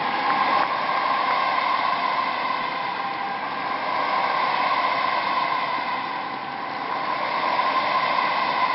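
Crowd cheering without a break after the speech's closing call, a dense, steady sound that swells and eases slowly.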